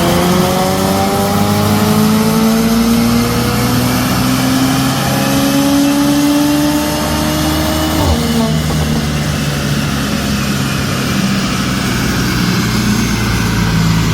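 Mercedes-AMG C43's twin-turbo V6 on a chassis dyno, pulling at wide-open throttle with revs climbing steadily for about eight seconds, then lifting off sharply and running on at lower revs.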